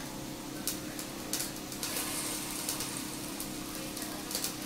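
Skewered meat sizzling and crackling on the grate of a smokeless charcoal grill, over a steady low hum from the grill's built-in fan. A few light clicks as skewers are set down on the metal grate.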